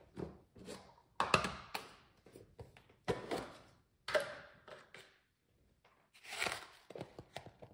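Kitchen handling noises: a string of knocks and taps, each with a short rustling scrape, the strongest about a second, three seconds, four seconds and six seconds in.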